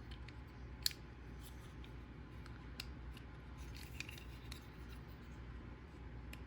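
Scattered small clicks and ticks of a die-cast Hot Wheels Blazer being handled, its tiny metal doors swung open and shut; the sharpest click comes about a second in.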